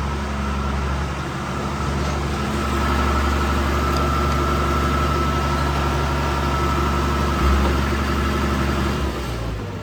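Tractor engine running steadily at low revs with the feed grinder just backed into place, then dropping away near the end.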